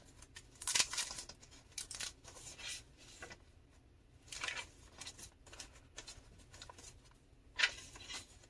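Paper pages of a handmade junk journal being turned by hand: a series of soft paper swishes and rustles, with one louder swish near the end.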